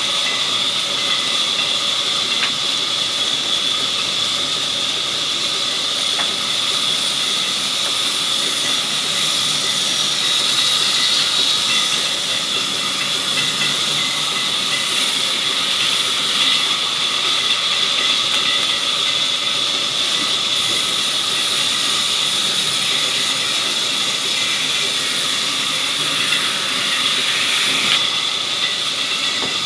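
Sawmill saw cutting through a log: a steady high-pitched hiss with a whine on top that does not let up.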